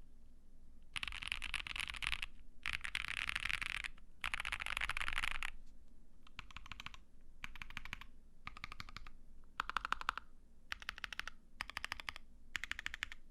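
An ai03 Vega mechanical keyboard with lubed Gazzew U4T Boba tactile switches on an FR4 plate, under GMK keycaps, being typed on. Three runs of fast keystrokes come in the first half, then shorter bursts of clacks about once a second.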